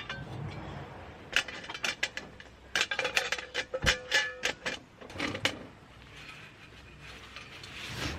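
Rapid, irregular clicks and clatters of camping gear being handled. They come thickest through the middle and thin out near the end.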